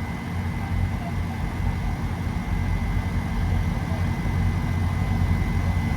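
Heavy diesel engine idling steadily, a low rumble with a faint steady high whine above it.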